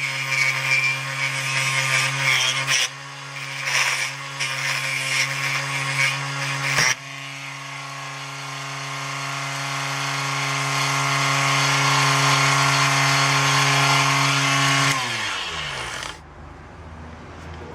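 Raitool 80 W 24 V DC mini wood lathe running, with a tool scraping on the spinning hardwood in uneven bursts. About seven seconds in the scraping turns smoother and steadier. Near the end the motor is switched off and its hum falls in pitch as it spins down.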